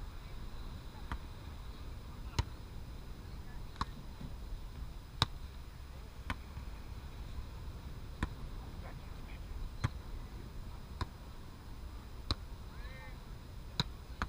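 A ball being hit back and forth in a rally: about ten sharp knocks spaced a second or so apart, over a low steady background hum.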